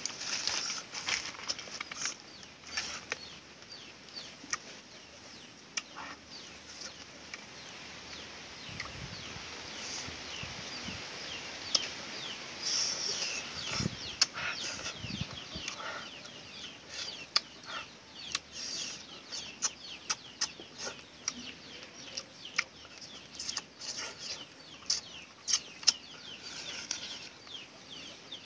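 Chopsticks clicking against a bowl and the sounds of eating, with many sharp clicks throughout. Birds chirp busily in the background from about a third of the way in.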